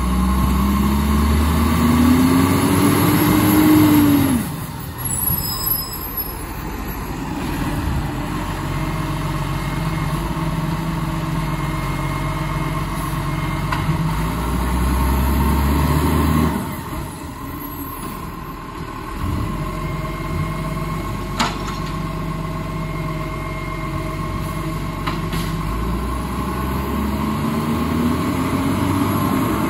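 Iveco garbage truck's diesel engine working along the kerb: the revs climb steadily for about four seconds and drop sharply, swell again around the middle, and climb again near the end, with steadier running in between.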